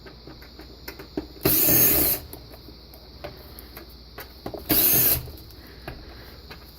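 Cordless power screwdriver running in two short bursts, the first under a second, the second about half a second, backing out screws. Light clicks and taps of handling come between the bursts.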